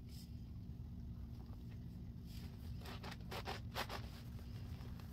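A sponge soaked in dish soap and baking soda lather being lifted and squeezed in gloved hands, giving a quick run of wet, crackling squishes from about halfway through, densest shortly before the end.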